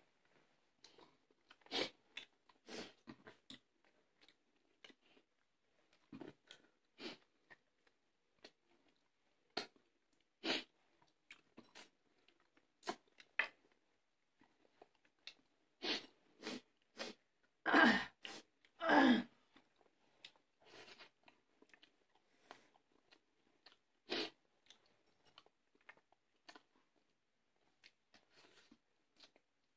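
Close-up chewing and crunching of food eaten by hand, in scattered short crunches and mouth noises. Two short, louder voice sounds come a little past halfway.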